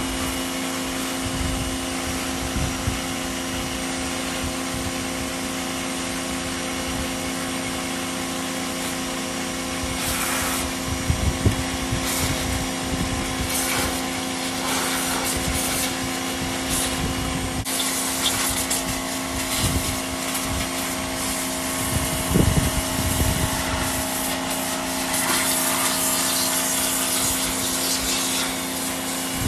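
IFOURNI IF-701A electric high-pressure washer running, its 1800 W carbon-brush motor and pump giving a steady hum. A hiss, likely the water jet, swells unevenly from about ten seconds in and grows stronger in the second half.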